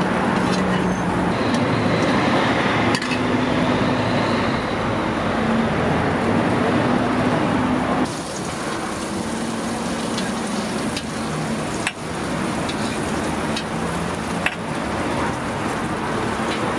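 Egg-and-cabbage toast patties sizzling on a flat-top steel griddle, with a few sharp clicks of a metal spatula against the plate, over steady street traffic noise.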